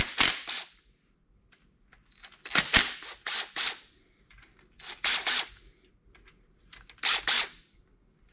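Cordless impact driver rattling in four short bursts as it cracks loose the connecting-rod cap bolts on a 6.0 L LQ4 V8, so the rod cap can come off to read the Plastigauge.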